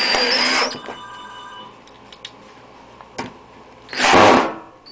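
A power drill driving screws in short bursts, with a steady high whine in the first burst, to fasten the clips of a terne-coated metal roof panel.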